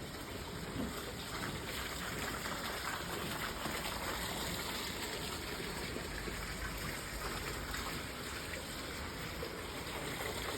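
A steady, even rushing sound like running water.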